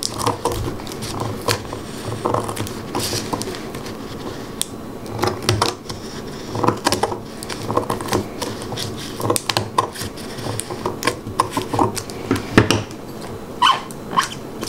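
Scissors snipping and working at a thin clear plastic cup fitted over a plastic plant pot, with irregular crackling clicks from the plastic and a few short squeaks.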